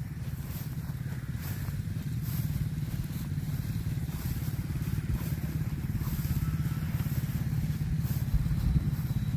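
A small engine running steadily with a fast, even putter that grows slowly louder.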